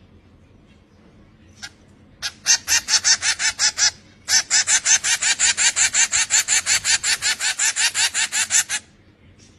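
A bird calling in two bouts of quick repeated high notes, about seven a second: a short bout, then after a brief pause a longer one of about four seconds that stops abruptly. A single click comes just before.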